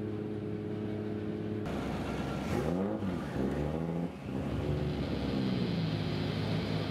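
A drift car's engine running at a steady idle, then blipped a few times about two and a half seconds in, its pitch rising and falling quickly, before settling back to a lower, slightly wavering speed.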